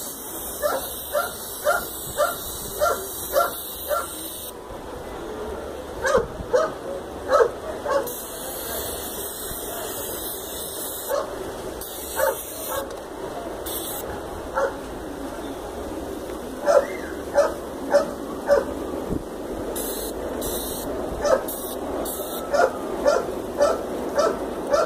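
A dog barking in runs of short, quick barks, about two a second, the loudest sound throughout. Beneath it, an aerosol spray paint can hisses in on-off bursts as lines are sprayed onto the wall.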